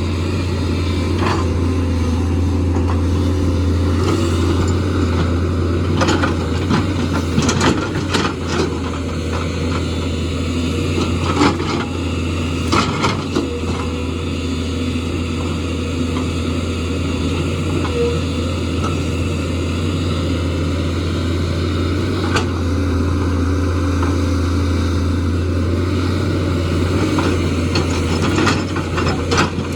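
JCB excavator's diesel engine running steadily with a low drone, with scattered sharp knocks and clatter that cluster in the first half and again near the end.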